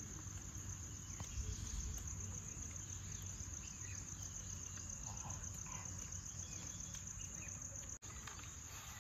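Insects trilling steadily: a high-pitched, rapidly pulsing chirr over a faint low rumble, cutting out briefly near the end.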